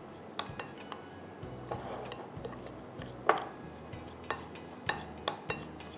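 A utensil stirring crushed biscuits and soft butter in a mixing bowl, with irregular sharp clinks against the bowl, the loudest about three seconds in.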